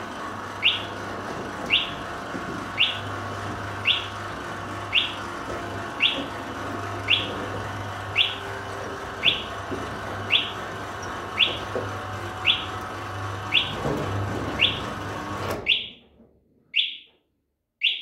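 The FCP03 fire control panel's sounder chirps about once a second as the fire alarm warning, over the steady hum of the roller shutter's motor driving the shutter down. The motor stops abruptly near the end as the shutter reaches its closed position, and the sounder chirps twice more.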